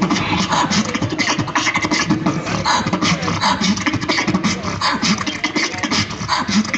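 Live beatboxing through a microphone and PA speakers: a fast stream of mouth-made clicks and drum-like hits over a low humming bass line.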